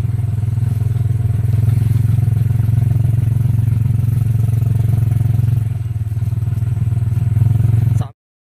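Homemade three-wheeled cargo vehicle's Honda Supra single-cylinder four-stroke motorcycle engine running steadily at a low, even pitch while hauling a load of cut grass. The sound cuts off abruptly shortly before the end.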